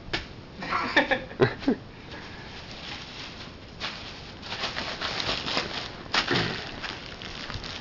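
Plastic bubble wrap crinkling and snapping as a dog chews and paws at it: a quick run of sharp snaps in the first two seconds, then a longer stretch of crackling with another sharp snap past the middle.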